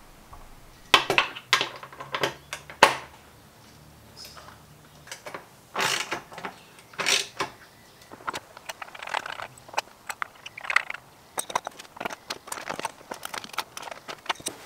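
Steel barn-door hanger hardware being bolted on: metal clinks as bolts and nuts are set in the hanger strap, then a wrench tightening the nuts, with a run of quick clicks near the end.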